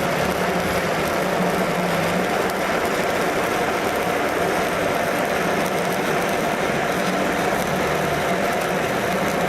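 Electric arc welding: the arc giving off a steady crackling hiss, with a low steady hum underneath.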